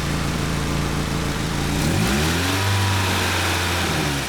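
Nissan Sentra SE-R's SR20DE four-cylinder engine idling. About two seconds in, the engine speed rises, holds higher for a couple of seconds, then drops back near the end. It is an engine with a rough, skipping idle.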